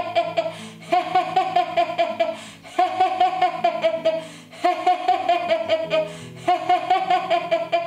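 A woman doing deliberate yoga-style laughter on an "eh" vowel, in rhythmic bursts of rapid "eh-eh-eh" pulses, about five bursts each roughly a second and a half long. Soft steady background music runs underneath.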